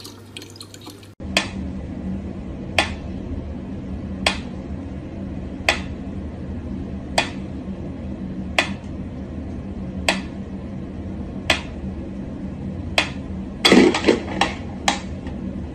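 Mechanical pendulum metronome ticking slowly and evenly, about one tick every second and a half. Near the end comes a quick run of several louder knocks and clicks.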